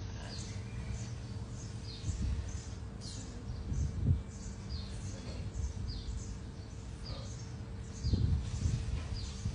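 A bird chirping over and over in short falling notes, about once or twice a second, over a low rumble with a few dull thumps.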